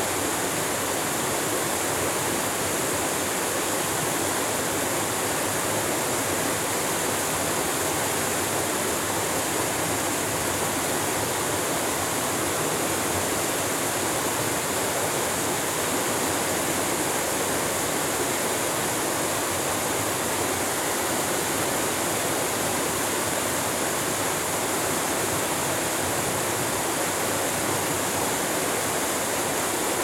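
A small woodland stream pouring over a stepped series of low rock cascades: the steady rush of falling water.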